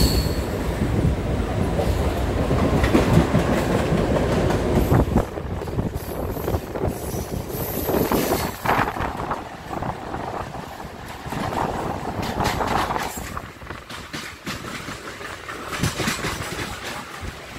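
Mumbai suburban electric local train running, heard from inside the coach by the open door: a rumble of wheels on rail with clicking over the joints. It is loudest for the first five seconds, then drops to a quieter run with scattered clicks and a brief high squeal near the middle.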